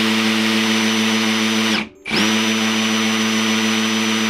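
Ryobi R18PDBL-0 18V brushless hammer drill running in hammer mode with its bit boring into hard stone: a steady, loud drilling note. It stops briefly just before two seconds in, then starts again.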